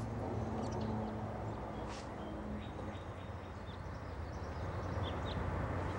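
Quiet outdoor ambience: a steady low hum with a few short, faint bird chirps.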